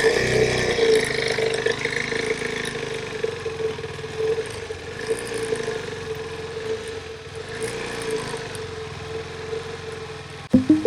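KTM 390 Adventure's single-cylinder engine running at a steady pace on an off-road trail, with rushing noise over it, slowly fading. Near the end it cuts off suddenly into background music.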